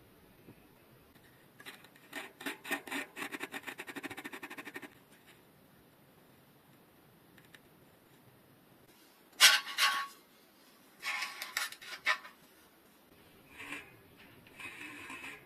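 Metal tools working on a Shimano HB-TX505 bicycle front hub as it is taken apart: a fast run of clicks for about three seconds, then several short bursts of scraping, the first the loudest.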